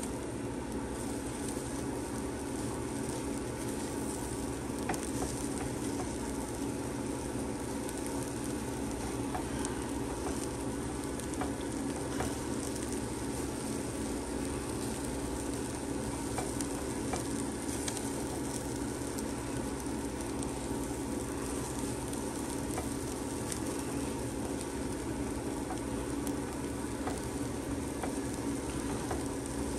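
Corned beef hash of potatoes and corned beef frying in a pan, sizzling steadily while it is stirred, with small scattered clicks of the utensil against the pan.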